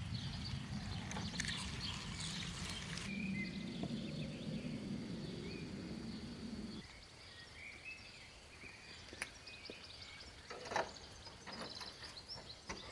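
Outdoor ambience: a low rumble of wind on the microphone with small birds chirping. It turns quieter partway through, and near the end a bunch of keys jingles and clicks against a lock on a wooden door.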